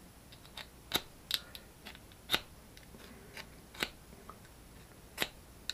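A small, tarnished fire steel from a survival tin being struck with a metal striker: about half a dozen short, sharp scrapes at uneven intervals.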